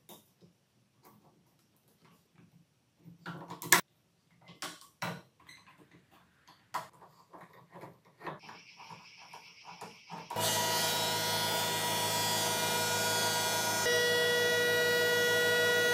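Bar clamps being set and tightened on boards, with scattered clicks and knocks of clamp jaws and handles, one sharp knock near four seconds in. About ten seconds in, a jointer-planer running as a thickness planer comes in loud and steady, a whine of several steady tones over a rushing noise, growing louder near the end.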